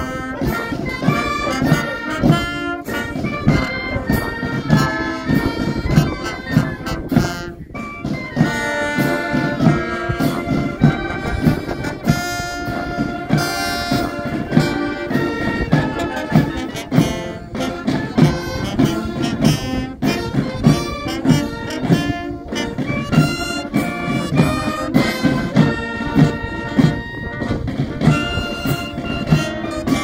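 Marching band playing: brass instruments carry the tune over snare and bass drums keeping a steady beat.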